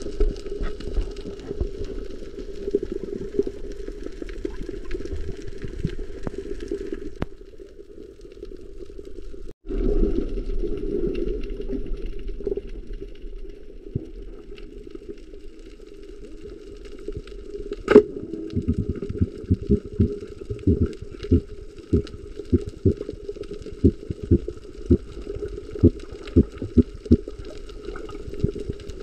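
Underwater rush of moving water around an action camera in its housing, steady with a brief dropout about a third of the way in. Two-thirds through comes one sharp loud snap, the speargun firing, followed by a run of sharp clicks about twice a second.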